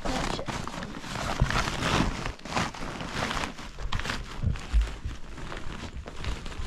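A woven plastic sack rustling and crinkling as it is handled and filled with loose dry soil by hand, with a few dull low thuds.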